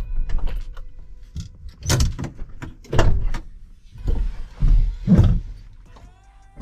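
A vehicle engine stops, then a series of knocks and thuds, about four loud ones, as the vehicle's doors are opened and shut.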